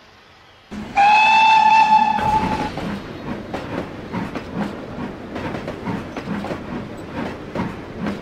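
A steam locomotive whistle gives one steady note for about two seconds, then a rhythmic chuff-and-click of about two to three beats a second as the pannier tank train gets under way.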